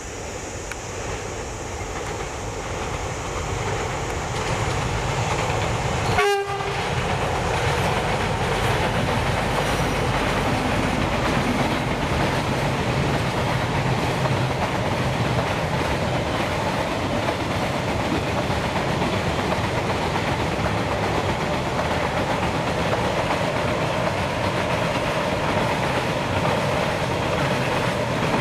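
Container freight train hauled by a diesel locomotive passing close by. Its rumble grows over the first few seconds, then holds steady as the wagons roll by on the rails. The sound breaks off briefly and sharply about six seconds in.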